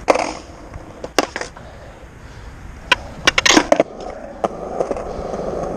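Skateboard clacks: a few sharp knocks of the board hitting the ground, with a quick cluster of them about three and a half seconds in. After that the wheels roll with a steady rumble that grows louder toward the end.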